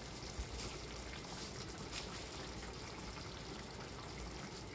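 Sauce simmering in a frying pan, a faint steady hiss, with a couple of light ticks.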